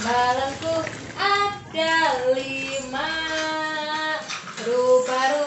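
A child singing a tune, holding some notes for about a second and gliding between others.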